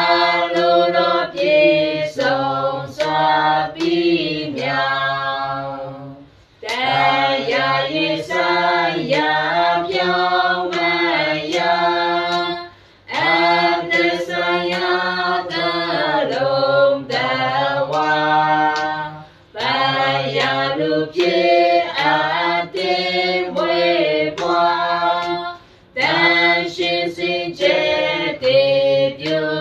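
A small group of men and women singing a Burmese hymn without instruments, in phrases of about six seconds with short breaks between them, and hand claps keeping a steady beat.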